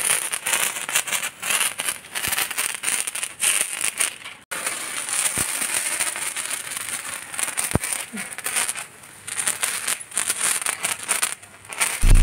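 Handheld sparkler fizzing and crackling in a dense, continuous spray of tiny pops, cutting out for an instant about four and a half seconds in.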